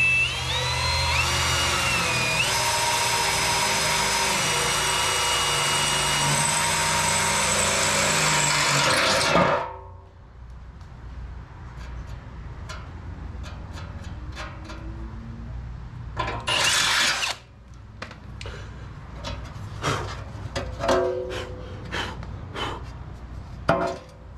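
Power drill running for about nine and a half seconds, its pitch climbing in steps as the trigger is squeezed, then stopping; a second short run comes about sixteen seconds in, with clicks and knocks of parts being handled in between, as holes are drilled and the fan is screwed to a sheet-metal shroud.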